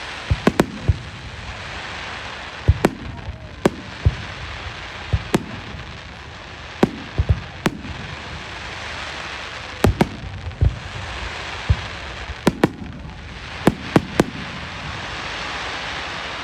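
Fireworks display: shells bursting in about twenty sharp bangs, irregularly spaced and sometimes in quick pairs, some with a low boom, over a steady hiss.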